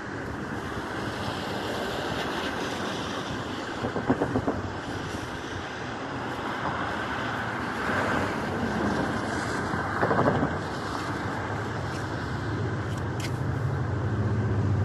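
Street traffic passing with wind on the microphone, cars swelling past now and then. A low engine hum builds near the end.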